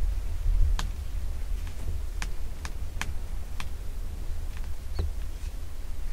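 Wind buffeting the microphone as a steady low rumble, with a scattering of sharp ticks.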